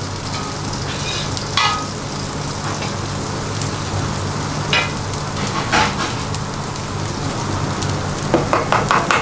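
Dosa batter sizzling on a hot flat iron griddle as it is spread in circles with the back of a small bowl, over a steady low hum. A few short scrapes of the bowl on the griddle, with a quick run of them near the end.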